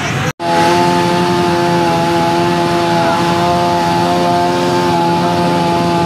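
Chainsaw running at a steady high speed, cutting up a fallen tree trunk; it comes in abruptly about a third of a second in and holds one pitch throughout.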